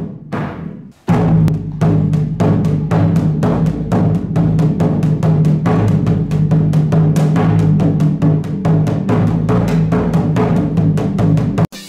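Hira-daiko (hanging flat Japanese taiko) beaten with two wooden sticks: a few strokes on the hide head while it is stretched and slack, then, about a second in, a fast steady roll of about four or five strokes a second with a strong low ringing tone, the head now taut again after being steamed and sun-dried. The drumming cuts off suddenly near the end.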